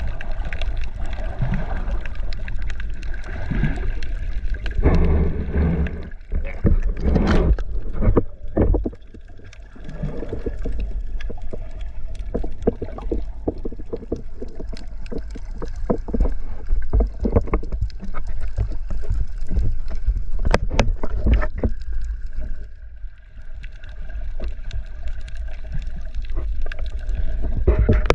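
Water sloshing and knocking around the microphone, with a constant low rumble and many short clicks and knocks, and a faint steady hum in stretches.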